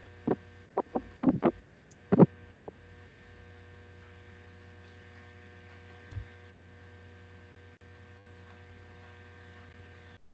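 Steady electrical hum with a faint set of steady tones, heard through an open microphone on a video call. There are a few short sharp clicks or knocks in the first couple of seconds, and the hum cuts off abruptly near the end.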